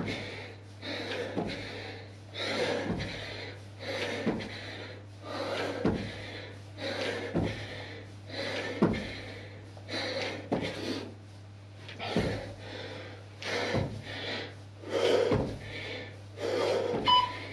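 A person doing jumping squats: a landing thud about every one and a half seconds, each with a hard breath out, and heavy breathing in between. Near the end, short electronic beeps from a workout timer begin.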